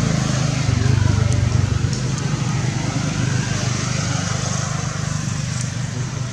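A motor vehicle's engine running with a steady low drone and road hiss, loudest about a second in and then easing slightly.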